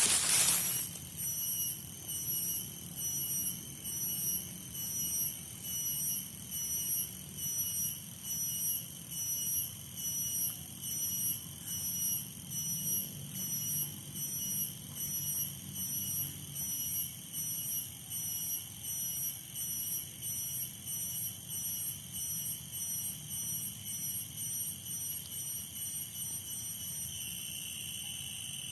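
An insect calling in the forest: a loud, high-pitched tone pulsing about one and a half times a second, turning into one steady unbroken tone near the end.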